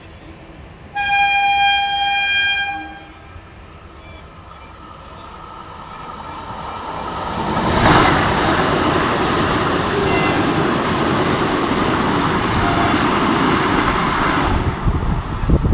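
A train horn sounds one steady note for about two seconds. Then the Vande Bharat Express approaches, rushing past at speed for about seven seconds before its noise falls away near the end.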